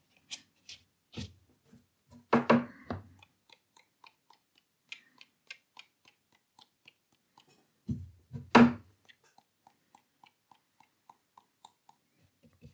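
Watercolour brush tapped to spatter paint onto the paper: two loud clusters of knocks, about two and a half and eight and a half seconds in, with faint light ticks between them.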